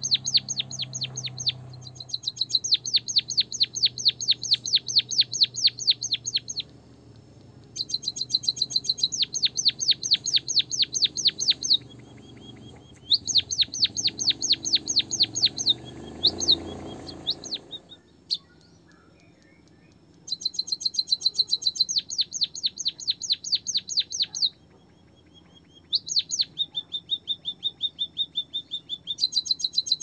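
White-headed munia singing: bouts of rapid, evenly repeated high chirps, about seven a second, each a few seconds long with short pauses between. Near the end it switches to a lower trill.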